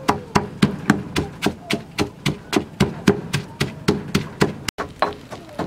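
Pestle pounding chilies and garlic in a stone mortar: steady, rhythmic thuds at about four strokes a second.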